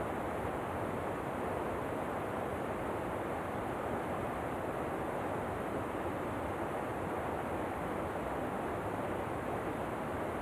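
Steady rush of falling water, an even unbroken hiss that does not change.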